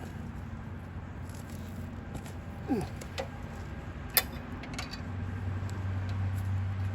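A few sharp metallic clicks and clinks from hand tools and hardware on a chipper shredder as its shredder blade is bolted back on, the loudest about four seconds in, over a steady low hum that grows louder near the end.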